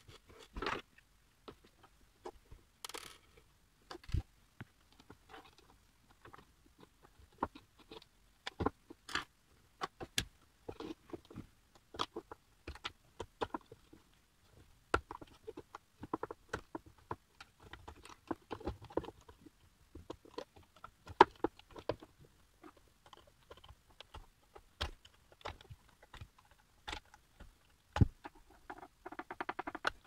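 Hands handling the wiring inside an opened electric kettle base: irregular small clicks and taps of metal connectors, wires and the plastic housing against the table.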